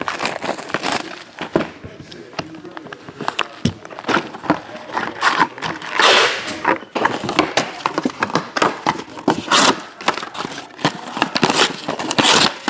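Plastic shrink-wrap and the cardboard of an SPX basketball card hobby box being torn open, and the foil packs pulled out and set down: irregular crinkling and rustling with many small clicks and taps, and louder crinkling bursts now and then.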